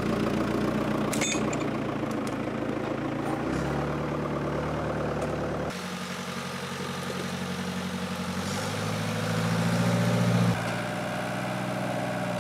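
The 80-horsepower diesel engine of a Fiat-Hesston 80-66 DT tractor running while it drags a chained boulder through the bush. Its engine note steps up and down several times, with sudden changes about halfway and near the end, and there is a brief knock about a second in.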